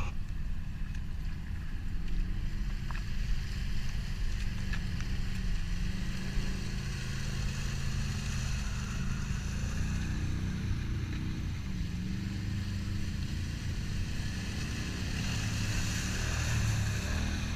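Engines of Can-Am side-by-sides and quads running steadily as they crawl one after another through a muddy puddle. Near the end one passes close, its engine louder, with a hiss of mud and water churned up by the tyres.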